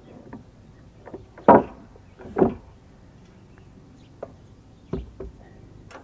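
A heavy rough-sawn wooden beam being set down on a wooden log bed: two loud thumps about a second apart, then a lighter knock near the end.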